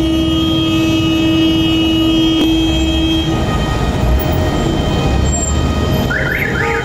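Street traffic: engines running with a steady rumble. Over it a long, steady vehicle-horn tone stops about three seconds in, and short rising chirps come near the end.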